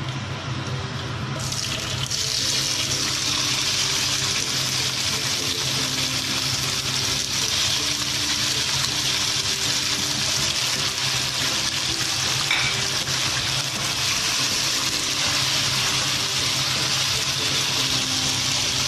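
Chopped tomatoes sizzling in hot oil with cumin seeds and curry leaves in a karahi. A steady, loud hiss starts suddenly about a second and a half in, as the tomatoes hit the oil.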